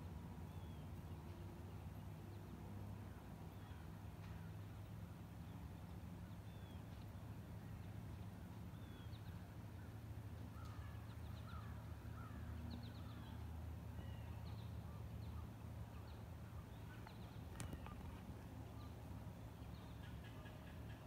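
Faint wild birds calling in leafless woods, short scattered chirps with a brief flurry about halfway, over a steady low rumble. A single sharp click about three-quarters of the way through.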